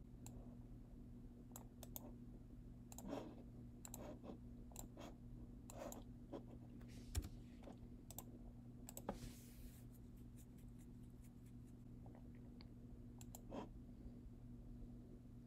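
Faint, scattered clicks of typing on a computer keyboard, over a steady low electrical hum.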